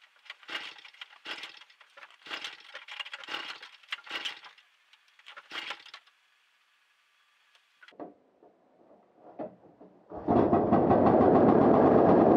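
A run of short crackling, clinking handling noises at a 1968 Polaris Mustang snowmobile. About ten seconds in, its two-stroke engine fires on a cold start and runs on steadily and loudly.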